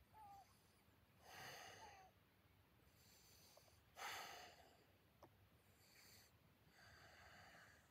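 Faint, slow breaths, a soft noisy puff every second or two, about six in all, in time with slow movement exercises.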